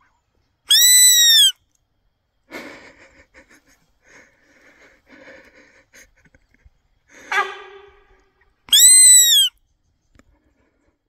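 A loud, high call that rises and falls in pitch, heard twice about eight seconds apart, with fainter scattered sounds between.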